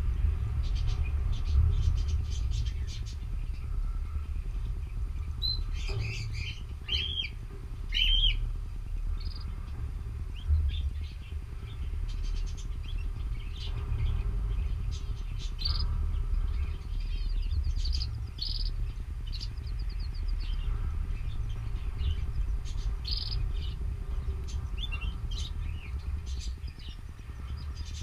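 Canaries giving short, scattered chirps and calls, a few at a time, over a steady low rumble.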